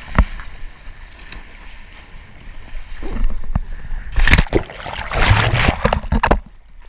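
Riders thrown off a towed banana boat into the sea: a sharp knock, a few seconds of rushing wind and water, then loud, irregular splashing and sloshing from about three seconds in that drops off sharply near the end.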